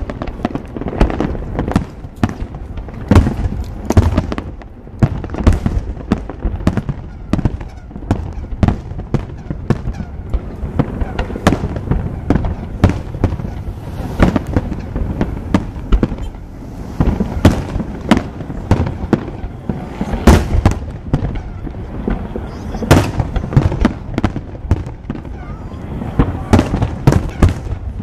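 Aerial fireworks display: shells bursting in rapid, irregular succession, several loud bangs a second, continuously.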